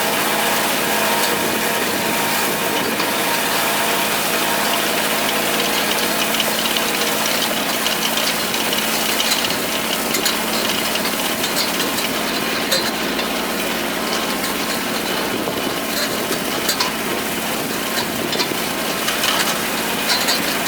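Kubota tractor's diesel engine running steadily, with scattered clicking and rattling from the hay tedder working behind it.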